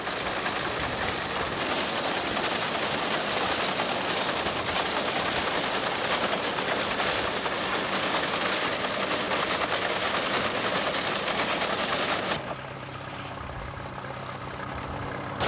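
Tractor-drawn reaper-binder cutting standing wheat: its mechanism clatters rapidly over the running tractor engine. About twelve seconds in the sound drops suddenly to a quieter, steadier engine hum.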